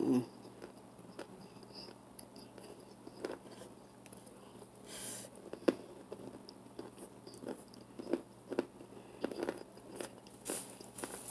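Close-up chewing of hard, powdery baked starch chunks made from an arrowroot mix, giving irregular crisp crunches and mouth clicks, with one sharper crunch about halfway through.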